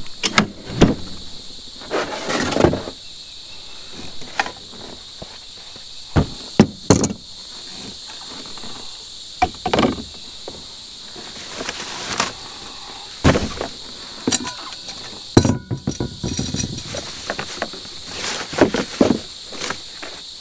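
Irregular knocks, clunks and scrapes of objects being moved and handled, over a steady high insect chorus.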